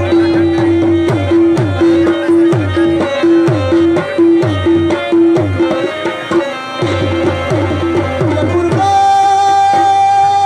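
Live South Asian folk music: hand drums play a quick rhythm with deep bass strokes that slide down in pitch, under a repeated held instrument note. About nine seconds in, the drumming stops and a single higher held note carries on.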